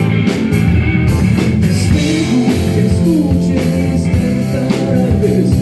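Rock band music: guitar over a drum kit with a steady beat. From about two seconds in, a melody line slides between notes.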